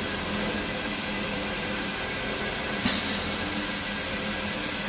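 HEM 1200 LAS automatic bandsaw running steadily, its variable-speed drive humming under a hiss. About three seconds in there is a sharp click, after which the high hiss gets louder.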